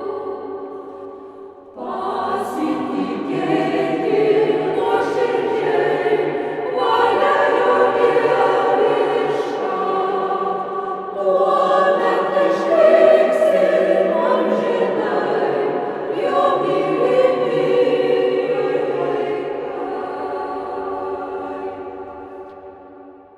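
Church choir singing sustained chords in a reverberant space. One phrase dies away into its echo, a new phrase enters about two seconds in, and the singing fades out near the end.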